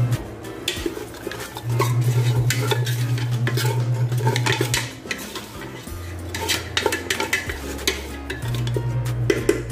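Wooden spoon stirring chunks of lamb with onion and spices in an aluminium pot, with many quick clicks and scrapes against the metal. Background music with a low bass line runs underneath.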